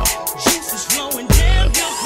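Background music with a beat: deep held bass notes and regular drum hits.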